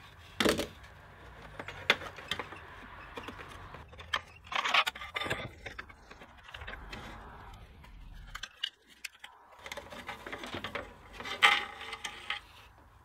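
Pliers and a choke cable's metal end clicking and scraping against a plastic steering-column shroud as its retaining tangs are squeezed and the cable is worked free. The sound is a run of sharp clicks and plastic rattles, loudest about half a second in, around five seconds in and about eleven seconds in.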